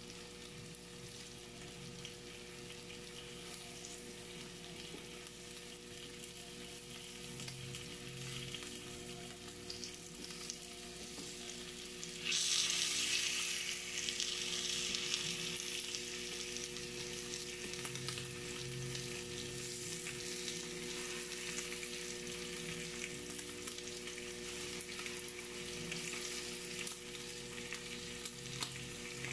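Marinated meat slices sizzling on a hot electric ridged grill, a steady frying hiss that grows suddenly louder about twelve seconds in and stays so.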